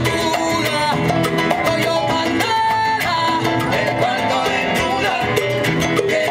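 Live salsa band playing with a steady beat, sharp percussion strikes under held melodic notes.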